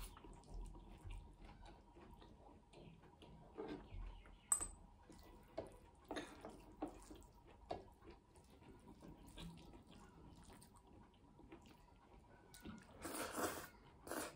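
Close-up eating sounds: wet chewing and lip smacks, with the squish of a hand mixing dal and rice in a metal plate. There are scattered soft clicks, and a longer, louder wet squelch near the end.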